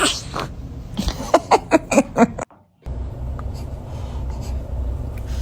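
A baby's sudden sneeze-like burst, then a quick run of about six short voiced sounds. After a cut, a steady low rumble follows.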